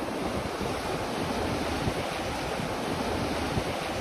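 Ocean surf breaking and washing up the beach, a steady rushing noise, with wind on the microphone.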